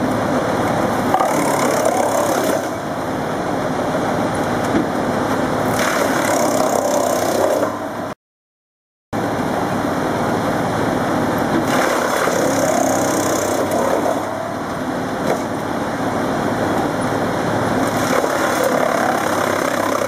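Tractor-PTO-driven disc wood chipper (Teknamotor Skorpion 250 RG-2/90) running under load as logs are fed through its tracked infeed into the cutting disc, a dense steady machine noise that wavers in pitch. It cuts out for about a second, eight seconds in.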